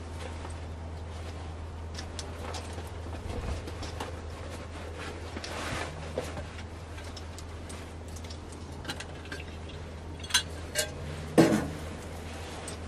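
Small stainless steel kettle set down on the steel top of a wood stove: two light metallic clinks, then a louder clank near the end. A steady low hum and faint scattered clicks run underneath.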